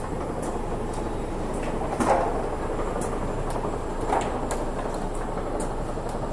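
Redington Model 9V vertical cartoner running: a steady mechanical din with frequent light clicks and clacks from its three-chain carton conveyor, and two louder clunks, about two and four seconds in.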